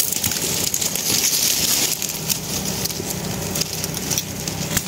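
Rustling and crackling handling noise, with many small snaps and clicks.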